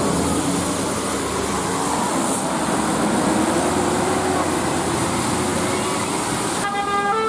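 A bus going by, its engine and road noise loud and steady, with the engine note rising and levelling off midway. Near the end a telolet multi-tone bus horn starts playing a stepping melody.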